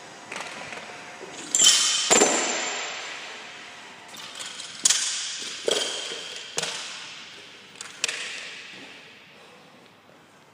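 Barbell with black bumper plates being handled: a series of about six sharp metal clangs, each ringing out and fading, the two loudest close together about two seconds in.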